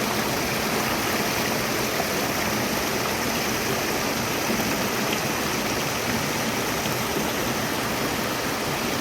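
Steady rushing of a flowing stream, an even unbroken water noise.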